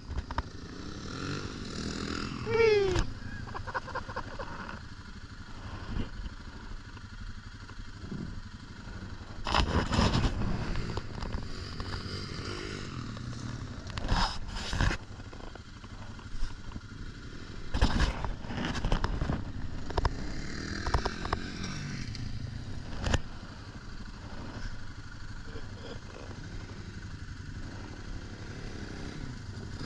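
Off-road vehicle engine running steadily at idle, with a few brief louder bursts of noise now and then.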